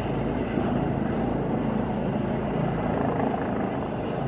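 Helicopter rotor and engine noise, a steady rumble, as the medical helicopter approaches to land. It fades a little near the end.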